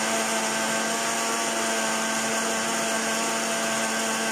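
Small personal blender running steadily at one constant pitch, its single-serve cup held down on the motor base as it purées avocados.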